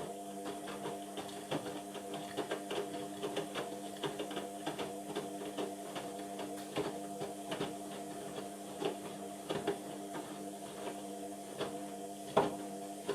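Indesit washing machine turning its drum during the wash: the motor runs with a steady hum of several tones, over irregular clicks and knocks from the tumbling load, with one louder knock near the end.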